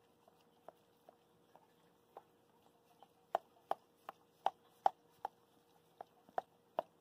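Border collie mother licking her newborn puppy clean: quick wet tongue smacks, faint and scattered at first, then louder and regular at about two or three a second from about three seconds in.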